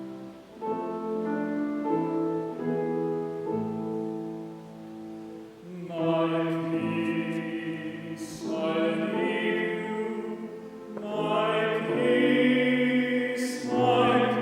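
Church music: held keyboard chords play alone, then singing comes in over the accompaniment about six seconds in.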